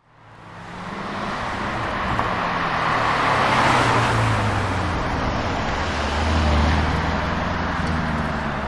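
Jaguar F-Type SVR's supercharged V8 running at low revs as the car rolls past, with tyre and road noise swelling about four seconds in. The sound fades in over the first second.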